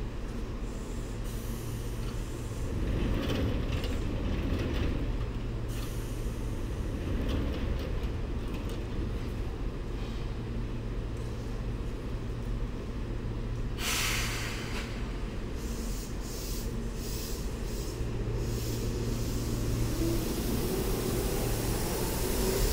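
Seibu 2000-series electric train standing at the platform, its equipment giving a steady low hum, with a sudden short hiss of compressed air about two-thirds of the way through. Near the end a rising whine builds as the train starts to pull away.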